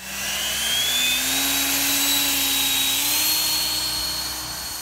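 Intro title sound effect: a loud rushing hiss with a thin whine that rises slowly in pitch, like a turbine spooling up, fading out near the end.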